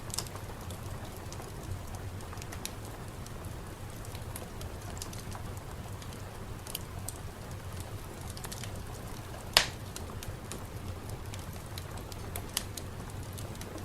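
Ambient soundscape: scattered sharp pops and ticks over a steady low rumble, with one louder pop about ten seconds in.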